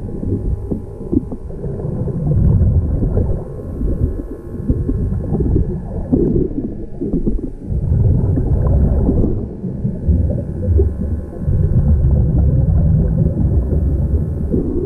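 Underwater breathing through an Air Buddy surface-supplied (hookah) regulator, heard through an underwater camera: exhaled bubbles rumble and gurgle in swells a few seconds apart, with quieter stretches between breaths.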